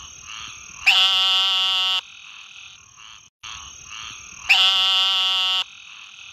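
A dark, warty frog calling with its round throat sac: two loud calls, each about a second long and held at one pitch after a quick upward slide at the start, about three and a half seconds apart. Softer calls of other frogs and a steady high-pitched tone sound between them.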